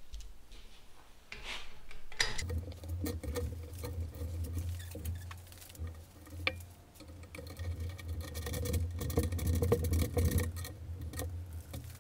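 Hand file scraping an aluminium saddle washer to shave it down 2 to 3 mm. Irregular scratchy strokes start about two seconds in, over a low steady hum.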